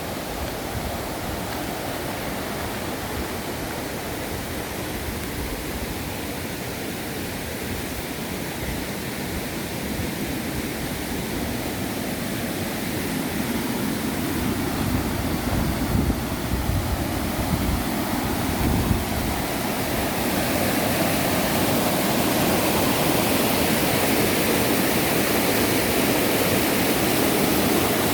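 Steady rush of flowing water, like a stream or small waterfall, growing louder about halfway through and then holding steady.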